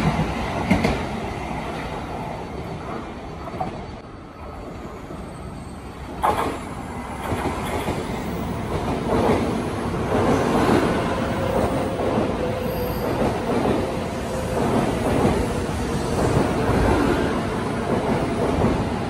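An N700A Shinkansen train running past on a nearby track, its sound fading away over the first few seconds. After a sudden change, another N700A train pulls in alongside the platform with a steady rushing noise and a faint steady whine.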